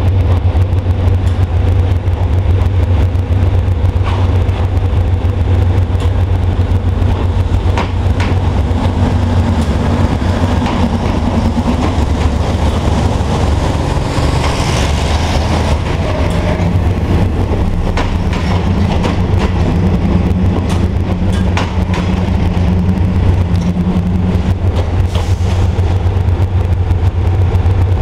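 Thai diesel railcar express train running past along the platform, its diesel engines rumbling steadily while the wheels click over the rail joints.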